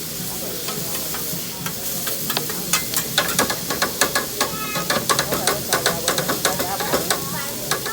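Food sizzling on a hibachi griddle, a steady hiss, with rapid sharp clicks and clatter starting about three seconds in.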